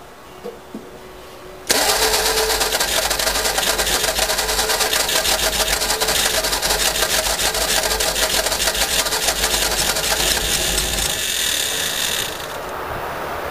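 Ford 100E four-cylinder sidevalve engine, freshly freed from seizure after decades standing, being cranked on its starter motor without catching. The rapid, even cranking starts abruptly about two seconds in, runs for about ten seconds and stops near the end.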